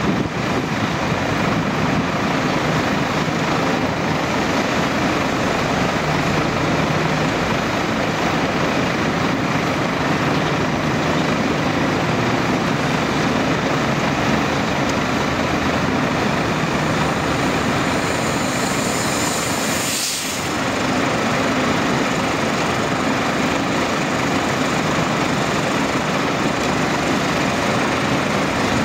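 Diesel engines of road-paving machinery, an asphalt paver and the tipper truck feeding it, running steadily, with a short hiss about two-thirds of the way in.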